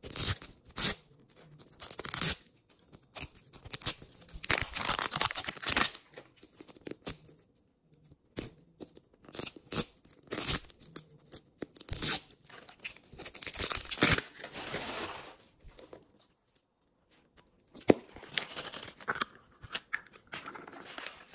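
Printed plastic wrapper being torn and peeled off a Miniverse toy capsule ball in irregular bursts of tearing and crinkling, with one sharp click about eighteen seconds in.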